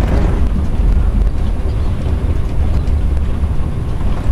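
Steady low rumble of an ED9M electric multiple unit running along the line, heard from inside the driver's cab.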